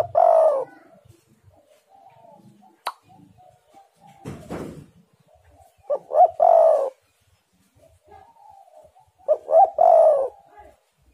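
Spotted dove (tekukur) cooing: three phrases, each a couple of short notes and then a longer falling coo, with fainter cooing between them and a short rustle partway through.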